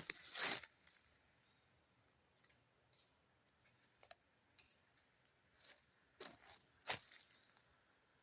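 Brief crunching, rustling noises: a loud burst about half a second in, faint scattered ticks and crackles in the middle, and another couple of crunching bursts near the end.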